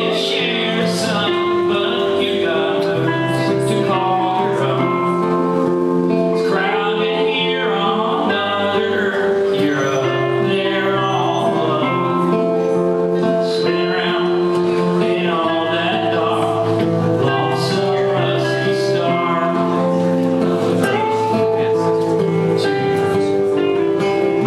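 Live music played on guitars, with a voice singing.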